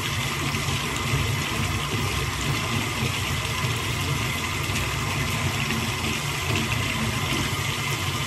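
Water running steadily into a bathtub as a constant rushing hiss.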